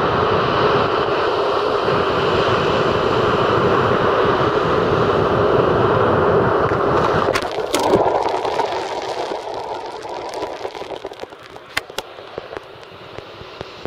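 Rough surf breaking on a sandy shore, a loud steady rushing of waves. Just after seven seconds a few sharp clicks cut in and the roar drops to a softer wash, with a couple more clicks near the end.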